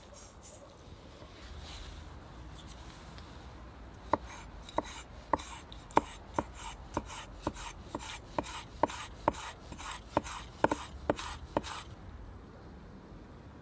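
Large knife chopping red chili pepper on a wooden cutting board: a steady run of about sixteen sharp strikes, roughly two a second, starting about four seconds in and stopping shortly before the end.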